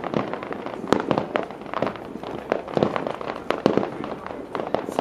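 Fireworks display: a rapid, irregular series of bangs from aerial shells bursting, several a second, over a continuous crackle.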